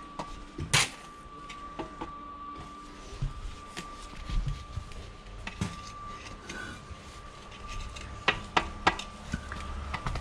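Scattered knocks and taps of concrete blocks and a trowel during blocklaying, one sharp knock about a second in and several more near the end, over a faint steady high whine.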